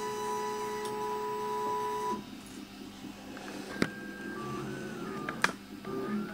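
Prusa i3 3D printer's stepper motors whining in stepped pitches that jump between a few levels as the print head moves to lay down the first layer, with two sharp clicks. Before that, a steady hum of several held tones stops suddenly about two seconds in.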